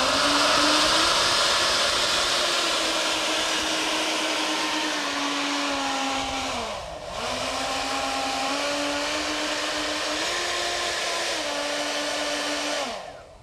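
Electric ducted fans of a scratch-built giant radio-controlled B-47 bomber model running up on the ground: a loud rushing whine that steps up and down in pitch. It spools down briefly about seven seconds in, spins back up, and winds down near the end.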